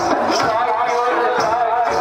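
Rajasthani folk music for the Ghindar dance: singing and a melody over sharp drum strokes.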